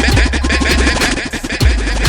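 Electronic dance beat: deep bass with short falling bass drops, fast ticking hi-hats and a held synth note.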